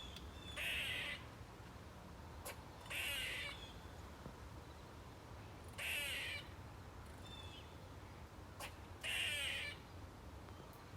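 Squirrel screeching: four harsh calls of about half a second each, spaced roughly three seconds apart.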